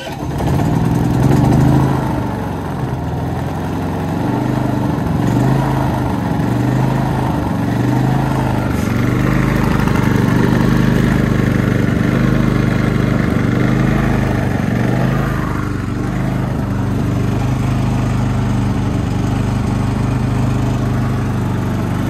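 Cummins Onan P4500i inverter generator's small engine starting by remote and running, its speed surging up and down instead of holding steady. This is a cold start in below-freezing weather, and the owner expects the surging to settle once the engine warms up.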